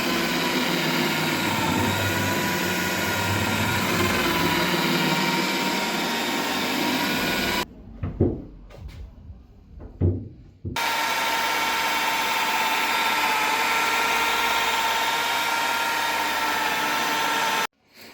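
Electric machine polisher running steadily with a high whine while polishing a test square of car paint. It stops abruptly for about three seconds, with a couple of knocks, then runs again and cuts off just before the end.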